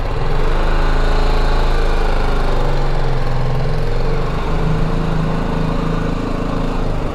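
BMW G310GS's single-cylinder engine running at low revs, heard close up from the bike as it rolls slowly along a narrow lane. The pitch rises a little about halfway through, then settles again.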